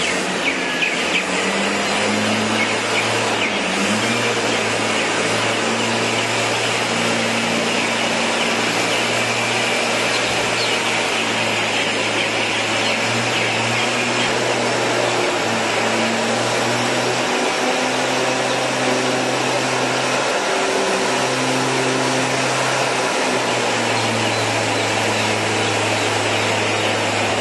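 Motorized backpack sprayer running steadily as it blows Stalosan disinfectant powder through its outlet tube over the bedding. A constant low motor hum, which dips briefly a few times, sits under a loud, even rush of air.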